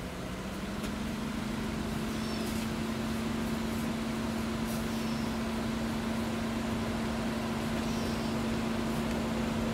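Diesel locomotives at the head of a loaded coal train approaching, their engines running with a steady low drone. The drone rises in pitch about a second in, then holds, and grows slowly louder as the train nears.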